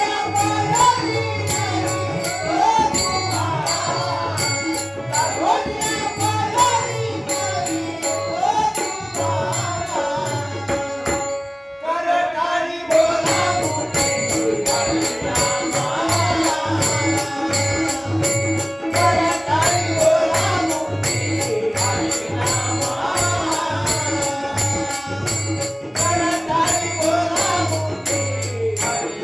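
Marathi devotional abhang: a male voice sings over tabla, a steady held drone and a fast, even clicking beat. The music thins briefly about twelve seconds in, then carries on.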